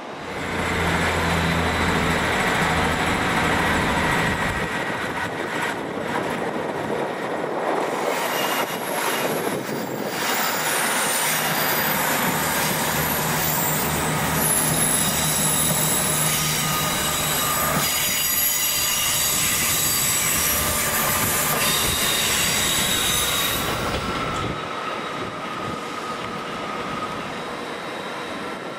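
A passenger train moving slowly through the station. A low hum at first gives way to high-pitched wheel squeal on curved track for much of its passage, and the sound dies down near the end.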